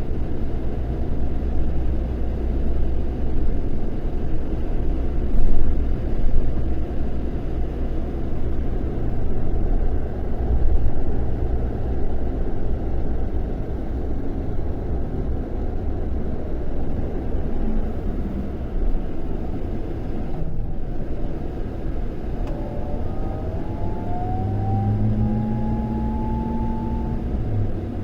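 Scania K400 coach's six-cylinder diesel engine running under way, a steady low rumble, with a rising whine joining in near the end.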